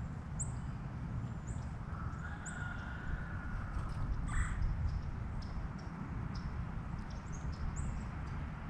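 Small songbirds chirping in short, high notes again and again over a steady low wind rumble. A drawn-out lower call sounds about two seconds in and ends in a sharp, harsh note a little past four seconds.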